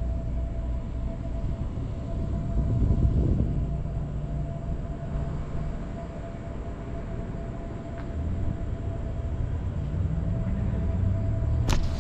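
Car engine running with a low rumble and road noise as the car rolls slowly. The engine note rises a little near the end, and a single sharp click comes just before the end.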